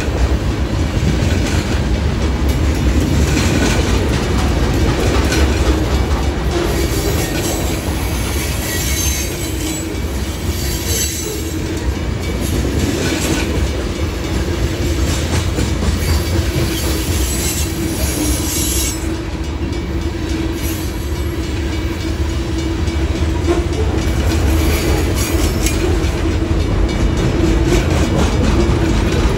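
Freight cars of a Union Pacific manifest train, tank cars then boxcars, rolling slowly past at close range. Their steel wheels on the rail make a steady heavy rumble.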